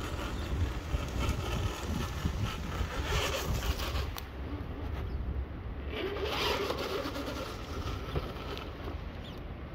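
Traxxas TRX-4 scale RC crawler's electric motor and geartrain whirring as it crawls slowly over rocks, its tyres scraping and crunching on stone and dirt, with a low rumble of wind on the microphone.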